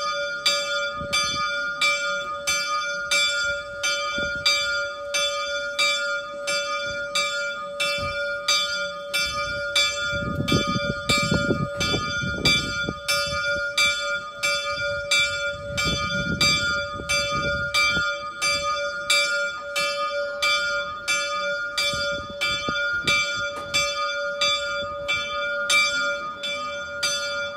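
Bell of the Slovak astronomical clock (orloj) tower struck rapidly and repeatedly at an even pace, about two strokes a second, ringing through the hourly procession of saint figures; it dies away near the end.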